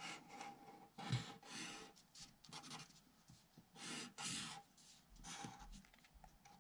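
Fine-tip marker drawing and colouring in lines on paper: a series of short, faint strokes across the sheet.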